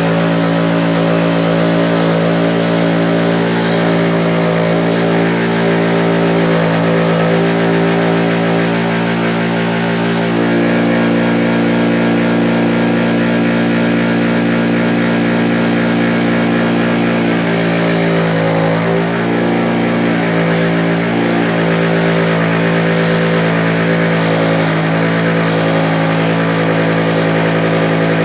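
Bench grinder motor spinning a 2000 grit polishing wheel at full speed, a steady loud hum that wavers briefly a few times about two-thirds of the way in.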